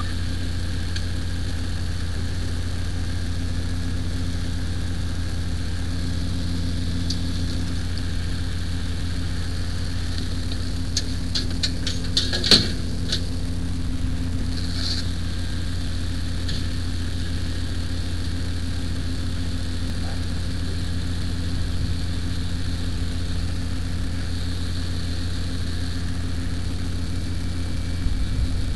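Fire engine running steadily with an even low drone. A short run of clicks ends in a sharp knock about twelve seconds in.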